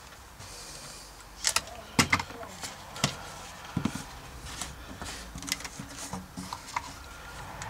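Scattered clicks and knocks from hands handling a hairdryer and a corrugated plastic vacuum cleaner hose.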